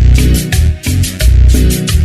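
Cumbia sonidera music: a loud, heavy bass line under a quick, steady percussion beat of about four strokes a second.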